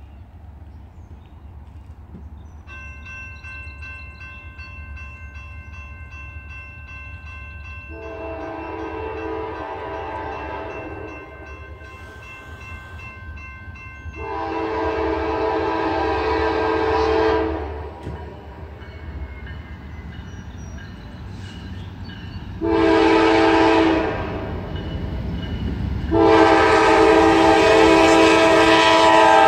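Norfolk Southern diesel freight locomotive sounding its multi-note air horn in the grade-crossing pattern, long, long, short, long, as the train approaches. The last long blast is the loudest and runs on past the end, over a low rumble of the oncoming train.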